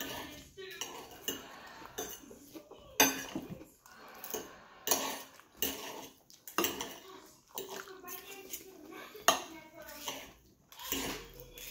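Metal knife and fork scraping and clinking against a plate while cutting through a salad of lettuce and tomato. The clinks come irregularly, with the sharpest about three seconds in and about nine seconds in.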